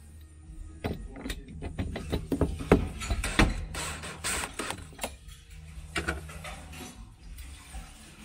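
DeWalt cordless drill/driver run in short bursts, driving screws into fridge panels. Sharp clicks and knocks of parts and the tool being handled come in between.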